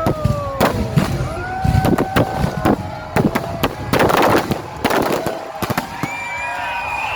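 Aerial fireworks going off in a rapid run of sharp bangs and crackles, with a dense crackling burst about four seconds in.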